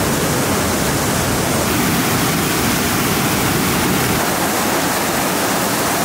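Fast mountain river rushing over rocks and rapids: a steady, even rush of water with no changes.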